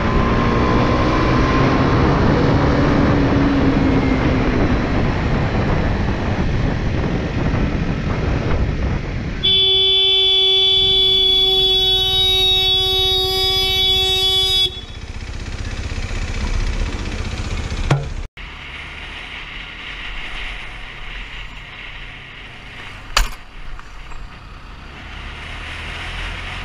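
Motorcycle riding with heavy wind roar on a helmet microphone and the engine pitch rising and falling. About nine seconds in a single-tone vehicle horn sounds, held steady for about five seconds. After it the ride goes on more quietly, with two brief sharp clicks.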